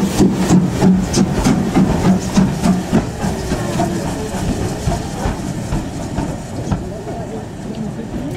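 BR Standard Class 4 2-6-4 tank steam locomotive standing in a station, hissing steam with a regular ticking about three times a second that thins out after about three seconds.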